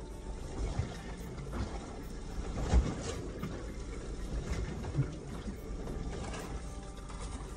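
Steady low rumble of wind and water around a small boat at sea, with two dull knocks, the louder about three seconds in and another near five seconds.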